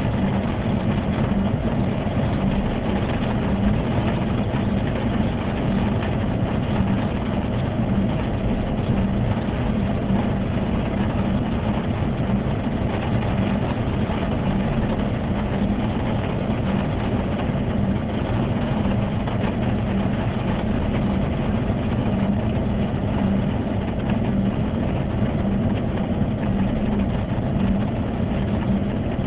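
Steady in-cabin driving noise from a moving car: engine and tyre drone with a constant low hum.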